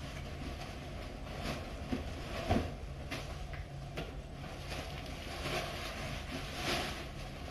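A collapsible fabric pop-up cat cube and a red wrapping sheet being handled and moved about, giving repeated rustles and a few light bumps, the clearest about two and a half seconds in, over a steady low hum.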